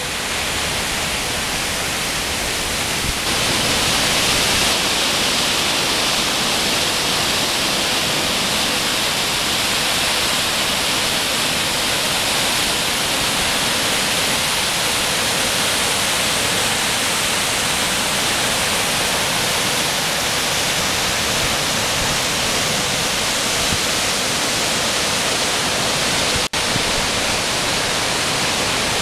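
Coopey Falls, a waterfall, rushing steadily as a loud, even hiss of falling water. The sound drops out for an instant near the end.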